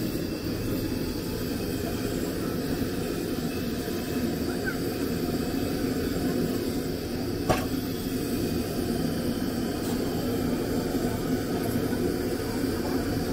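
Steady rumbling noise, with one sharp click about halfway through.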